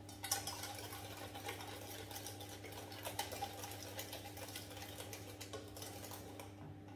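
Wire whisk beating an egg mixture in a stainless steel saucepan: rapid metal clicking and scraping against the pan, stopping shortly before the end.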